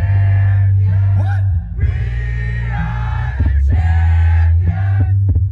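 Loud dance music with heavy bass playing over a concert PA during a live DJ set, with voices singing and shouting over it.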